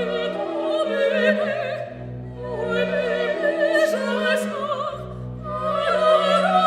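Operatic singing with a strong vibrato over sustained orchestral accompaniment, in three long phrases.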